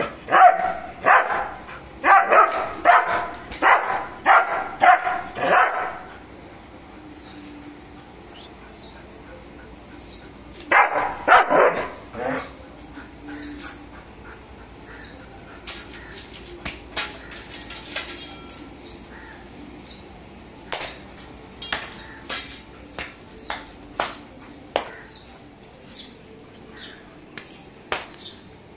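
German shepherd barking aggressively while guarding. It gives a fast string of about ten loud barks, then a short burst of two or three more about five seconds later. After that there are only scattered light clicks.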